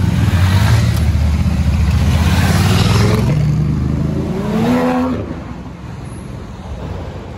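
Aston Martin DB11 engine running with a deep, steady note, then revving up in a rising pitch about four and a half seconds in as the car accelerates away. The sound falls off shortly after.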